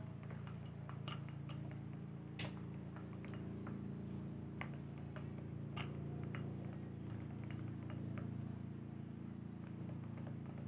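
Silicone spatula stirring a thick white paste in a glass bowl, with scattered light clicks and taps as it knocks against the glass, over a steady low hum.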